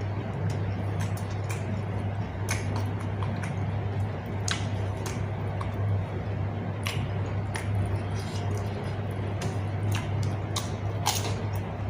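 A person eating close to the microphone: wet chewing and mouth smacks with irregular sharp clicks, over a steady low hum.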